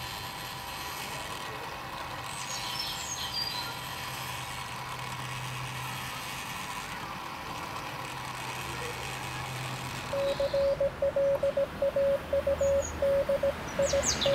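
Steady background noise with a low hum, then about ten seconds in a loud Morse code tone starts, a single pitch keyed on and off in quick short and long beeps, as from an amateur radio transceiver. A bird chirps near the end.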